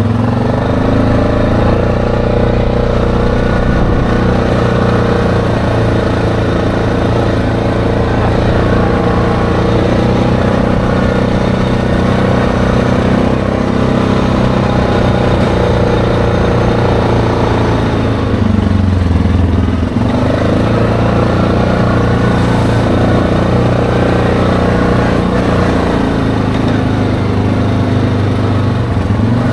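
ATV engine running under way along a gravel trail, a steady drone whose revs drop and climb again about two-thirds of the way through.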